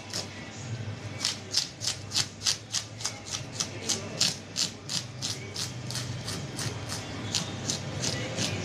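Fish scaler scraping the scales off a large red snapper in quick, regular strokes, about three a second, each a short rasp with scales flicking loose.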